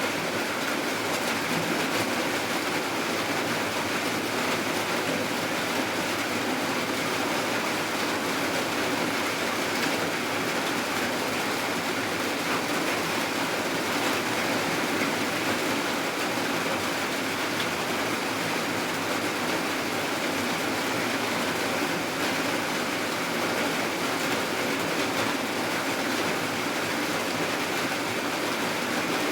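Rain falling steadily: an even, unbroken hiss with no pauses or separate drops standing out.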